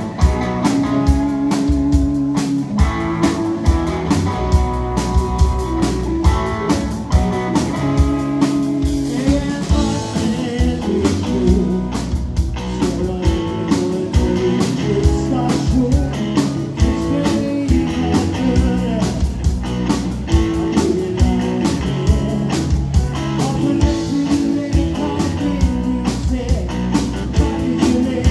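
Live blues-rock band playing: electric guitars, electric bass and a drum kit keeping a steady beat, with a man singing lead.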